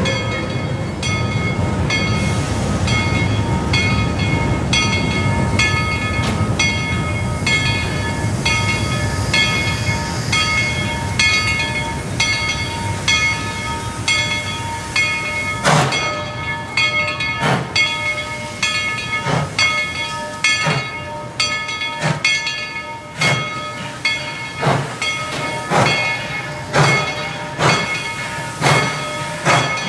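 Tweetsie Railroad steam locomotive No. 190 ringing its bell steadily, about once every three-quarters of a second. About halfway through, sharp steam exhaust chuffs begin and come faster and faster as the locomotive starts pulling away.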